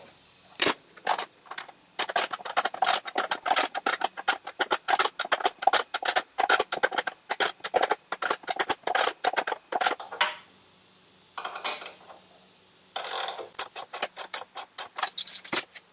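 Ratchet wrench clicking in quick runs of several clicks a second, with short pauses between runs, as the idler pulley bolt is tightened to set belt tension.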